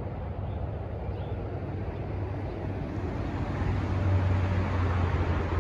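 Steady low outdoor rumble with a broad hiss above it, growing a little louder about four seconds in.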